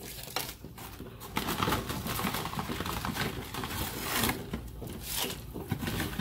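Water at a rolling boil bubbling in a stainless steel pot as dry lasagna noodles are slid in.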